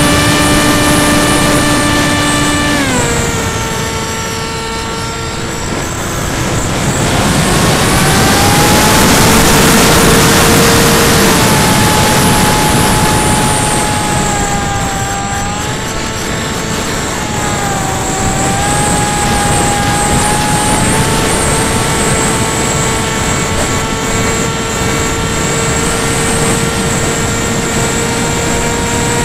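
Electric motor and propeller of a small FPV model aircraft heard from the onboard camera: a steady whine that shifts pitch with the throttle, jumping about three seconds in, fading into wind rush for a few seconds, then returning with dips and rises before holding steady through the last third. Wind rush on the microphone runs underneath throughout.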